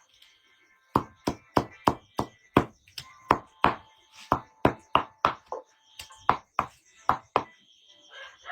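A rapid, even series of chopping strikes, about three a second and some twenty in all, stopping about a second before the end. A rooster starts to crow right at the end.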